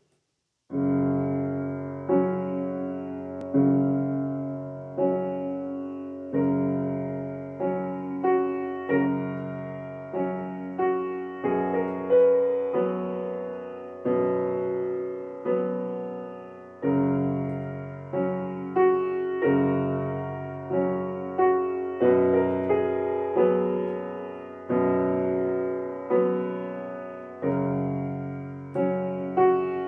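Piano played slowly with both hands, starting about a second in: chords and melody notes struck roughly every second, each ringing and fading before the next.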